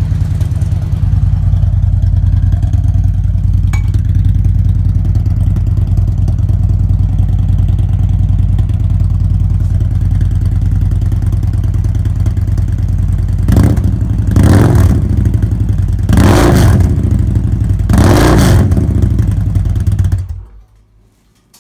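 2016 Victory Magnum's V-twin idling through re-baffled Miller mufflers, loud and deep, blipped a few times in the second half, then switched off near the end, cutting off suddenly.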